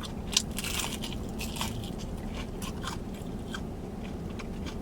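Close-miked biting and chewing of crunchy fried food: irregular crisp crunches, busiest in the first second, then slower chewing crackles.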